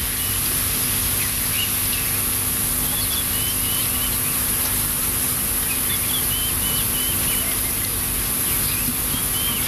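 Outdoor course ambience: small birds chirping many times over a steady high hiss and a faint low hum.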